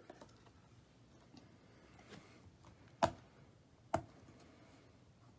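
Two sharp plastic clicks about a second apart, with faint light ticks around them, as a trading card is handled and slid into a rigid clear plastic toploader.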